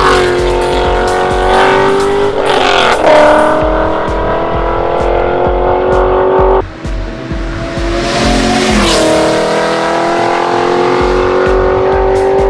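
Chevrolet Corvette C6 Z06's V8 accelerating hard, its pitch climbing steadily with an upshift about two and a half seconds in. Partway through the sound cuts off abruptly, then the car comes on again, passes close with a rush and a drop in pitch about nine seconds in, and pulls away still accelerating.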